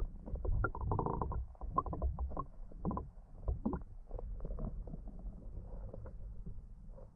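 Muffled underwater sound picked up by a GoPro inside its waterproof housing: a low rumble of moving water with irregular soft clicks and knocks.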